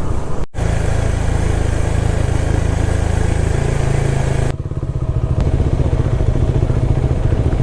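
Motorcycle engine running under way, with steady rushing noise over it. The sound cuts out for an instant about half a second in. About four and a half seconds in the hiss drops away and the engine's pulsing beat comes through more clearly.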